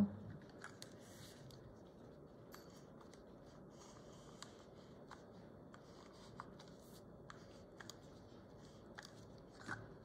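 Faint paper and sticker handling: scattered small clicks and light rustles as sticker sheets and planner pages are worked by hand.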